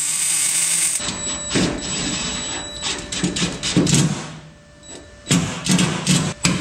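Metalwork on a Nissan R32 GT-R's bare steel chassis rail: a harsh, hissing, crackling tool noise at first, then several sharp metal knocks near the end.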